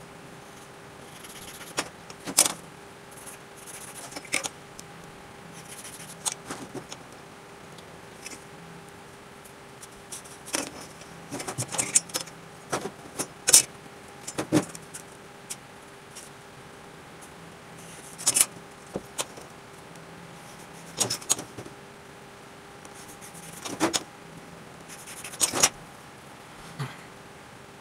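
Steel ruler and square clicking and clinking as they are set down and shifted on a board and workbench, with short pencil strokes scratching along the ruler. The clicks come irregularly throughout, over a faint steady hum.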